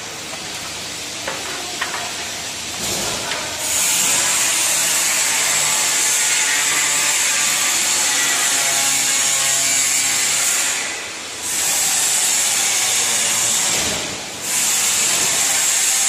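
Workshop machine noise: a loud, steady high-pitched hiss with faint humming tones beneath, starting a few seconds in and dropping away briefly twice in the second half.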